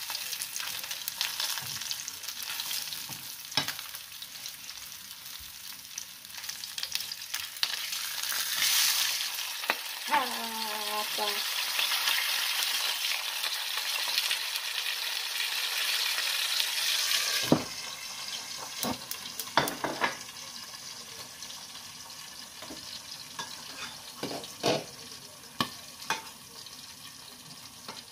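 Stovetop cooking: a steady sizzling hiss that grows louder in the middle and drops off sharply a little past halfway, with a few scattered clinks of utensils.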